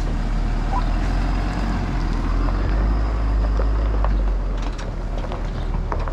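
Motorhome engine running low and steady as the rig creeps forward towing a Jeep, with gravel crunching in the last couple of seconds.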